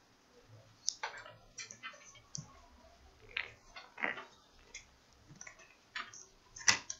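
Handling noise on a workbench: an irregular series of light clicks, taps and rustles as a charger cable and small parts are moved about, the sharpest click near the end.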